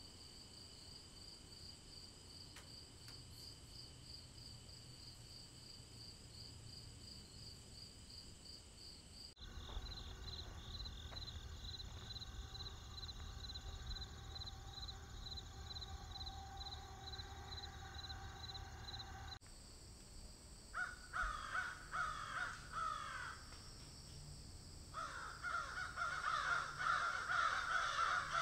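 Evening insects chirping in a fast, even pulse. About nine seconds in this cuts to crickets trilling over the low rumble of distant road traffic. About twenty seconds in it cuts again to crows cawing repeatedly in open country, the loudest sound here.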